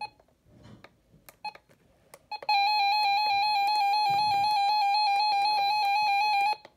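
RadioShack 12-262 weather radio's built-in beeper: a few short key-press beeps, then one loud steady electronic beep held for about four seconds that cuts off suddenly.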